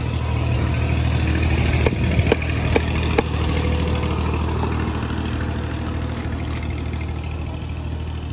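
Steady low hum of an idling engine, with a large knife scraping scales off a tilapia on a wooden chopping block and a few sharp knocks of the blade about two to three seconds in.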